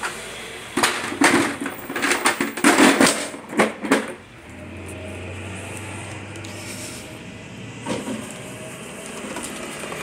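Aiper Seagull Plus robotic pool cleaner knocked and clattered about as it is handled and set down, then its motor running with a steady hum from about four seconds in, out of the water. One thump comes near the eight-second mark.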